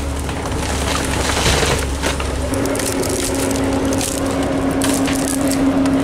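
Hydraulic excavator running while its grapple works the stump of a felled Monterey cypress, with wood cracking and splintering over the machine's steady drone. The drone shifts to a higher steady pitch about two and a half seconds in.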